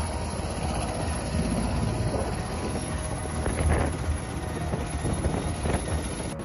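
Floodwater in a swollen river rushing as a steady rumbling noise, with wind buffeting the microphone.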